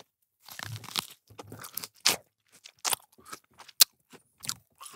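Bites into an ear of corn on the cob and crunchy chewing, close to the microphone: an irregular run of sharp crunches and mouth clicks.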